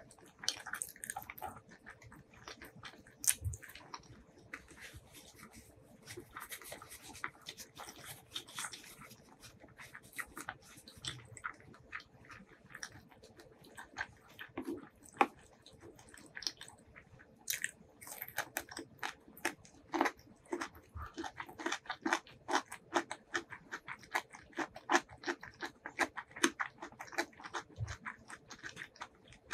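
Close-miked chewing of hand-fed rice and fried chicken, with wet mouth smacks and clicks. In the second half the smacks come steadily, about two a second. A faint steady hum runs underneath.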